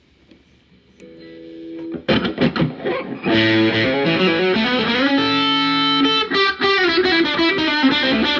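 Gretsch G5420-TG hollowbody electric guitar played through a Peavey Classic 30 tube amp's overdrive channel, distorted tone. After a moment of amp hiss, a quieter chord rings about a second in, then a few sharp strums, and from about three seconds in loud sustained chords and melodic lines.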